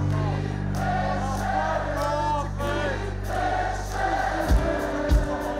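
A concert crowd singing along with a live rock band over a long held chord, with the drums coming back in about four and a half seconds in.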